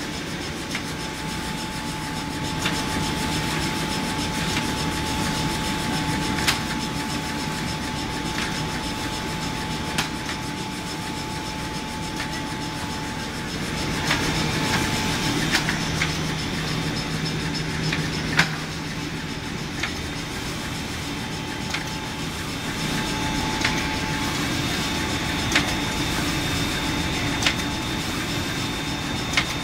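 Maxi roll tissue rewinding line with its log saw running: a steady machine noise, with a sharp knock every few seconds.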